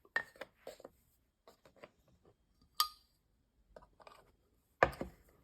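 Scattered light clicks and taps of small craft items being handled and set down on a tabletop, with a brief ringing clink near the middle and a louder knock near the end.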